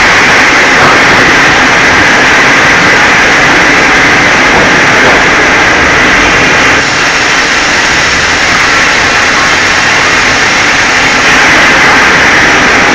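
Large vertical log band saw running and sawing through a log as the powered log carriage feeds it past the blade: a loud, steady, hissing machine noise.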